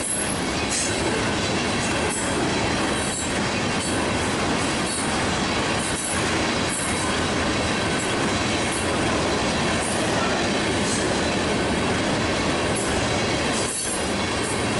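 Freight train of tank cars rolling past close by: steady noise of steel wheels running on the rails, with short high-pitched accents here and there.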